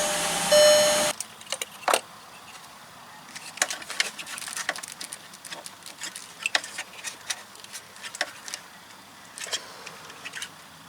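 A steady whine cuts off about a second in. Scattered light clicks and clatter follow, from hands working on a VW VR6's ignition coil pack in the engine bay.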